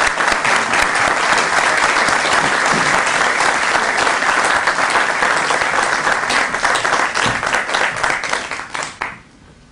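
Audience applauding, a dense patter of many hands clapping that dies away about nine seconds in.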